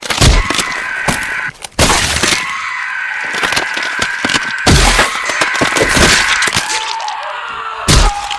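A loud, dense run of crashing, smashing and breaking sound effects with many sharp hits, over a steady high-pitched tone, as the hybrid creature is attacked and killed.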